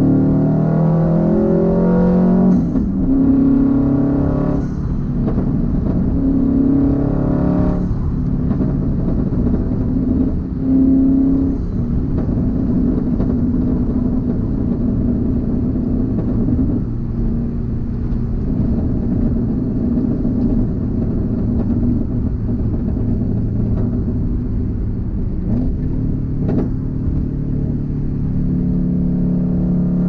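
2004 Subaru WRX STi's turbocharged flat-four engine and exhaust heard from inside the cabin, rising and falling in pitch with short breaks through gear changes in the first ten seconds or so, then holding a steady drone at cruise.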